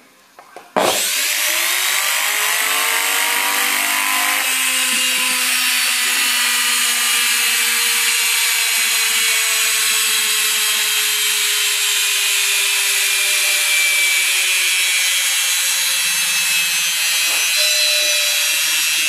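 Arçelik washing machine universal motor, with new carbon brushes and a freshly sanded commutator, switched on about a second in. Its whine climbs quickly over the next few seconds, then it runs loud and steady at high speed with a strong rushing noise.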